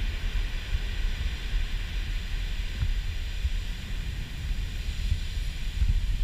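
Heavy storm surf breaking onto a pebble beach, a steady hissing wash, under strong wind gusting on the microphone with a low, uneven rumble.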